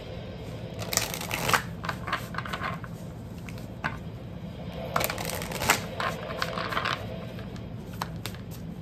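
A deck of tarot cards being shuffled and handled: two short bursts of rapid card clicks, about a second in and about five seconds in, with scattered single snaps between.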